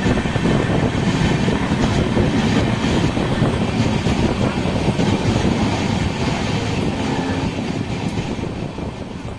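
Express passenger train running along the track: a steady, loud rumble of wheels on rail with some clickety-clack, easing slightly near the end.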